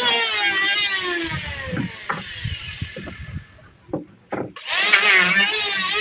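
Electric power saw cutting wood. Its whine sags and winds down over the first few seconds, a few sharp knocks of wood follow, and then the saw starts up again suddenly with a loud whine just past the middle.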